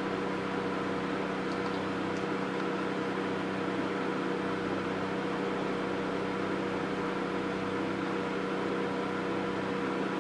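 Steady electrical hum with a few fixed, unchanging tones from a triple-wavelength (755/808/1064 nm) laser hair removal machine's cooling system running while the machine stands switched on.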